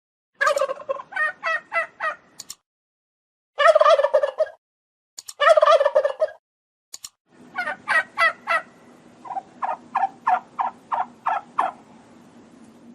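Turkey gobbling: several rapid rattling gobbles with short pauses between them, then a longer run that slows into separate notes about three a second near the end.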